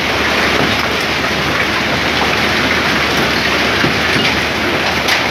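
Heavy rain mixed with hailstones pelting a flooded road, a dense steady hiss of splashing with a few sharp ticks late on.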